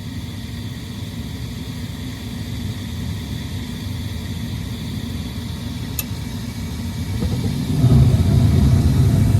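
Payne standard-efficiency gas furnace starting its heating cycle after a new hot surface igniter was fitted: a steady low motor hum, a single click about six seconds in, then a louder, deeper rumble comes in near the end.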